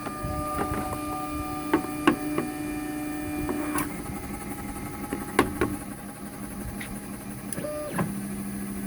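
International CNC i-Carver router's stepper motors whining as the gantry and cutter head move to their home position, a set of steady tones that jump to new pitches as each move starts and stops. Several sharp clicks come from the machine, the loudest about two and five seconds in.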